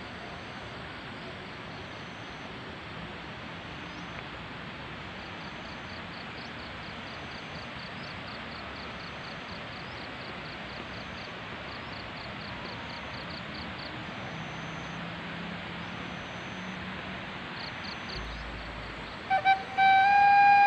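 Steady outdoor rural ambience: an even hiss with faint, high, rhythmic chirping. Near the end a loud, steady pitched tone with overtones cuts in, sounding twice briefly and then holding.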